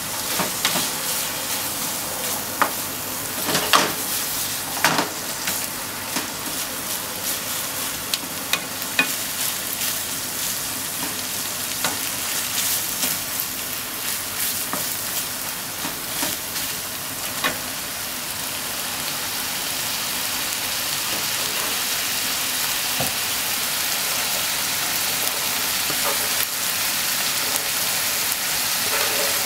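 Ground pork sizzling in a nonstick frying pan while a spatula stirs it, scraping and knocking against the pan in sharp clicks. Over the later part the stirring knocks stop and the sizzle runs on steadily, slowly getting louder.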